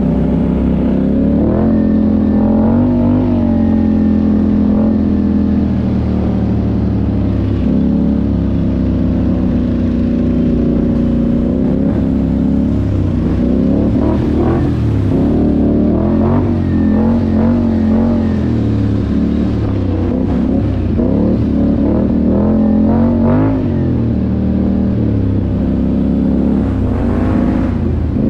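ATV engine running along a dirt trail, its pitch rising and falling over and over with the throttle.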